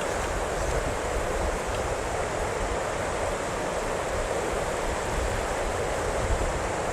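Steady rush of river water running through a gorge.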